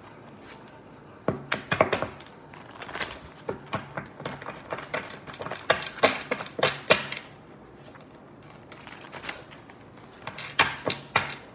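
A run of sharp clicks and knocks in irregular clusters, starting about a second in, with a quieter stretch in the middle and another flurry near the end.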